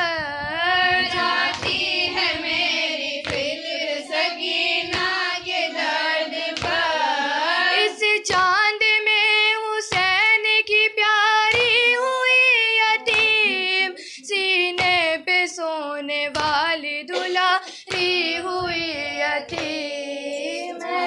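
A female voice chanting a noha, the Shia lament for Imam Husain sung in Muharram, in long held lines with a wavering pitch. Irregular hand-struck thumps of matam come through under the voice.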